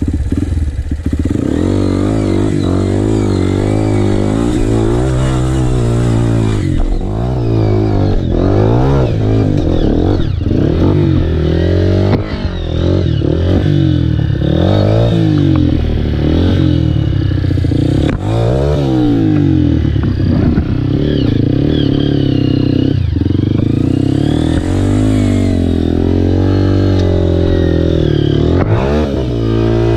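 Dirt bike engine revving up and down over and over as the bike is worked up a steep, rocky trail, with a few knocks as it strikes rock.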